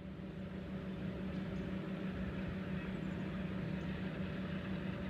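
Steady low engine drone holding one pitch, fading in at the start.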